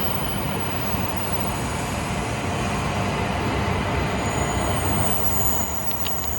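Coupled E5 and E3 series Shinkansen train running on the track: a steady rumble with a faint high whine, easing off slightly near the end.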